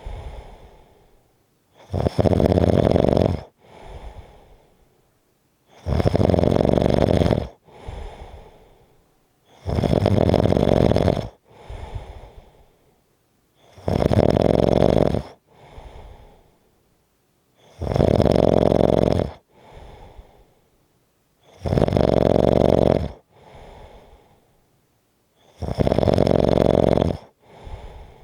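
Strong, steady snoring: a long, loud snore about every four seconds, seven in all, each followed about a second later by a softer, shorter breath.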